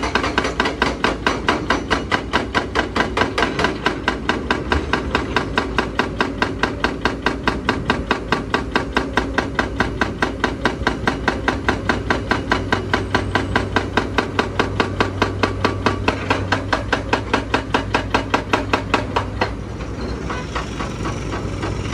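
Excavator-mounted hydraulic breaker hammering rock in a rapid, even stream of blows over a steady diesel engine drone. The hammering stops near the end, leaving the engine running.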